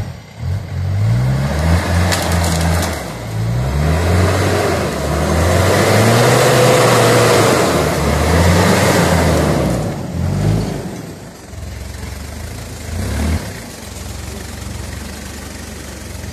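An off-road Isuzu 4x4's engine revs up and down repeatedly as it claws up a steep, muddy slope. The engine is loudest around the middle, as the truck comes close, and then settles to steadier, quieter running, with one short rev-up near the end.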